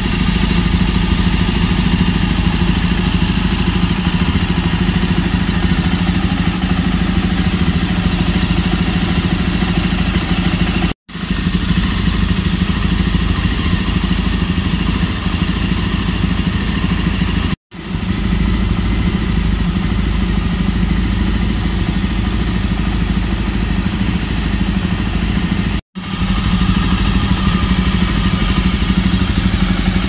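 Jawa 42 Bobber's single-cylinder engine idling steadily through its dual exhausts, heard close to the exhaust outlets. The steady running is broken by three brief dropouts.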